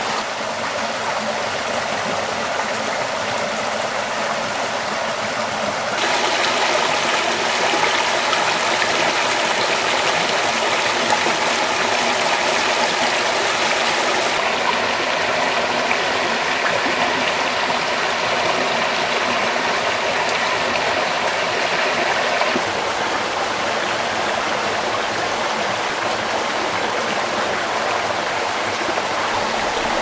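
A rocky mountain stream running steadily over stones. The rushing steps louder about six seconds in and eases back down about two-thirds of the way through.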